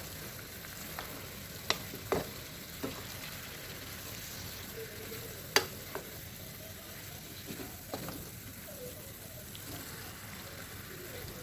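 Chicken, potatoes and vegetables sizzling in oil in a pot, fried without water: a steady hiss broken by a few sharp knocks from stirring in the pot, the loudest about five and a half seconds in.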